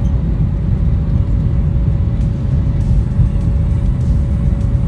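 Airliner cabin noise during takeoff: a loud, steady low rumble from the jet engines and airflow, with a steady whine held on one pitch.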